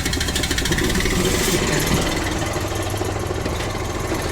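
An engine running steadily at idle just after being started, cranked up to drive the air compressor that airs up a semi truck tire.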